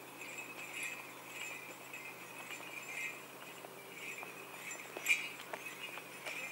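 A walking horse's tack jingling and clinking faintly with its steps, with soft clicks of its hooves and a sharper clink about five seconds in.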